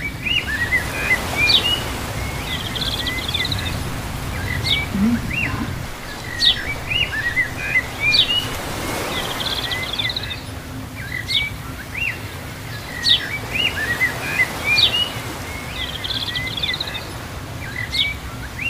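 Bird chirps and whistles in an added soundtrack, the same short pattern of rising whistles and a buzzy trill repeating about every six seconds, over a low steady rumble from the moving train.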